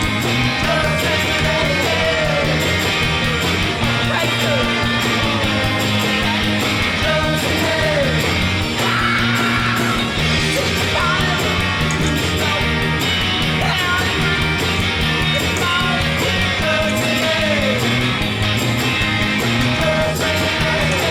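Loud rock music with distorted electric guitar, a steady beat and singing.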